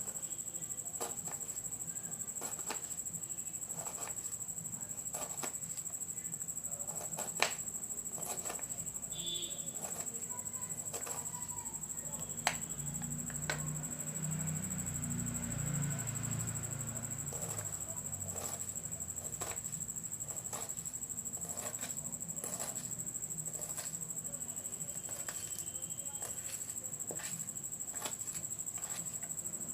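Kitchen knife finely chopping onion on a cutting board: irregular taps of the blade, over a steady high-pitched whine.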